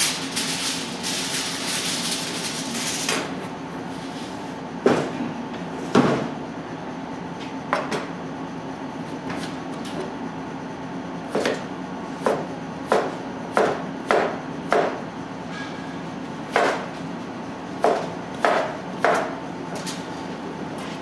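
Aluminium foil crinkling for about the first three seconds, then a chef's knife chopping sweet potato on a cutting board: single, irregularly spaced knocks of the blade on the board, coming quicker in the second half, over a steady low hum.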